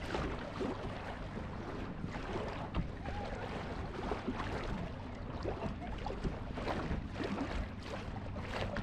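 Small boat moving slowly through calm lake water: water splashing and lapping against the hull close to the microphone over a steady low hum, with some wind on the microphone.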